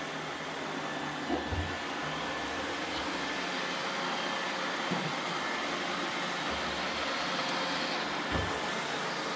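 Roomba robot vacuums running steadily, their motors and brushes giving an even whirring hum, with a few light knocks about a second in, halfway through and near the end.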